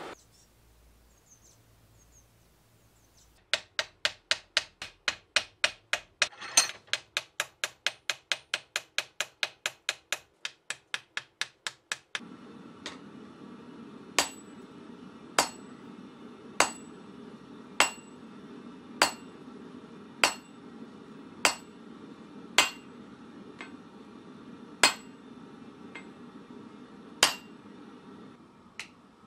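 Blacksmith's hand hammer striking hot steel on an anvil. First comes a quick, even run of blows, about four a second, for some eight seconds. Then, over a steady background noise, single strikes about a second apart.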